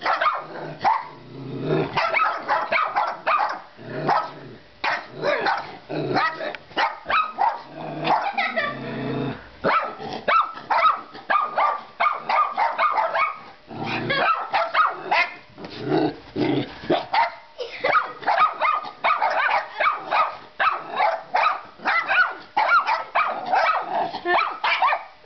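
Small dogs barking rapidly and repeatedly, a near-continuous stream of short, excited barks with only brief pauses.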